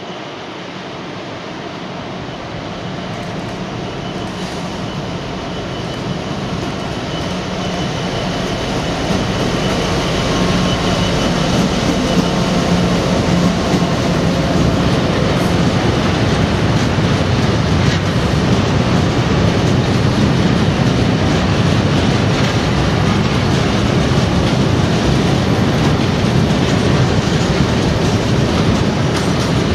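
Class 66 diesel locomotive with a two-stroke V12 engine approaching and passing, its engine growing steadily louder over the first ten seconds. After that comes the steady rumble of a long train of hopper wagons rolling by, with the wheels knocking over the rail joints.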